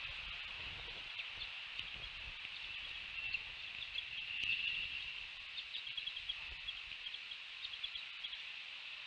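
Quick series of short, high bird chirps from about a second and a half in, busiest in the second half, over a steady high-pitched hiss of outdoor ambience.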